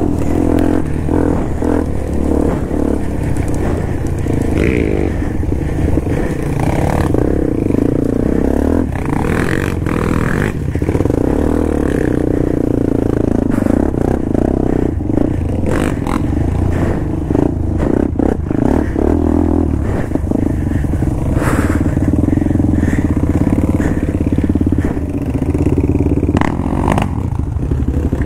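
ATV engine running steadily under way, with frequent rattles and knocks from the machine over rough ground.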